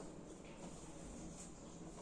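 Faint room tone, with no distinct sound.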